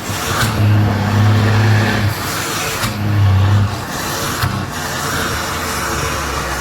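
Diesel truck engine with a straight-pipe exhaust, running under load. Its deep exhaust note swells twice in the first few seconds, then settles into a steadier drone.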